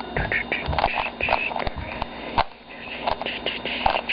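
A plastic 3x3 Rubik's Cube being twisted quickly by hand to scramble it: an irregular run of clicks and short scrapes as the layers turn.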